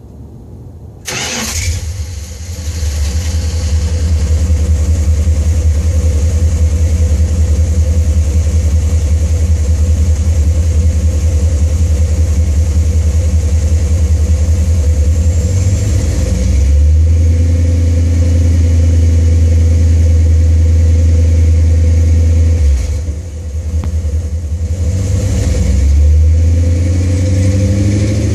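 A 1987 Dodge D-150's 318 small-block V8 starting about a second in and settling into a loud, steady idle through long-tube headers, an H-pipe and dual Thrush welded mufflers. The exhaust note shifts a couple of times later, with a short drop in level near the end.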